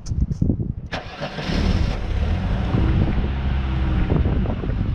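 Mercedes-Benz M103 straight-six with KE-Jetronic fuel injection cranked by the starter for about a second, catching at once and settling into a steady idle. The owner says this engine runs rough and starts hard, and he blames old fuel injectors and worn injector seals.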